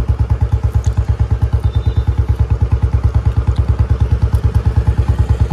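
Royal Enfield Bullet's single-cylinder engine idling with an even, loud thump, about nine beats a second.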